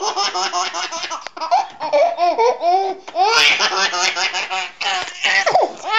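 A baby laughing hysterically, in quick pulsing runs of laughter and longer high squeals, broken by short pauses.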